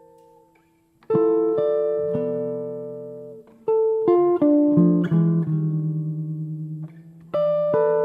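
Solo hollow-body guitar played fingerstyle in chord-melody style. A chord fades into a short pause, then new chords are struck about a second in, followed by a run of single notes over sustained chords and fresh chords near the end.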